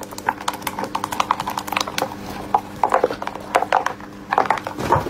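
A hard clear plastic box scraping and knocking across a wooden tabletop, in a quick, uneven run of clicks and clatters.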